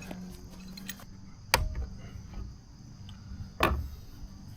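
Two sharp knocks about two seconds apart, with a few lighter clicks and handling noise between them, as the rear tyre is worked off the scooter's hub-motor rim.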